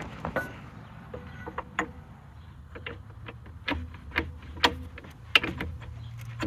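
Irregular metal clicks and light clanks, a few ringing briefly, as a driveline yoke is worked onto a shaft cleaned up with emery cloth; the sharpest knocks come past the middle.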